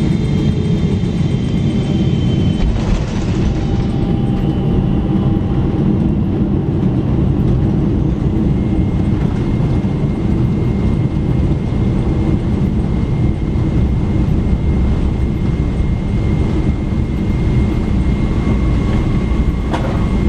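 Cabin noise of a Boeing 777-300ER's GE90 engines and wheels as the airliner rolls along the runway: a loud, steady rumble. Thin engine whines fall in pitch over the first few seconds, and a faint steady whine comes in about eight seconds in.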